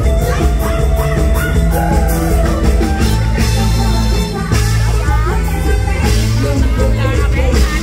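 A live mor lam band playing loud amplified music, with a heavy bass line and steady drums, and a voice singing over it.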